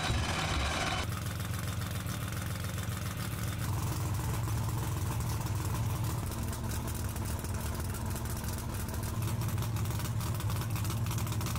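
Drag race car's engine idling steadily, with rapid even firing pulses. A louder wash of hiss covers the first second.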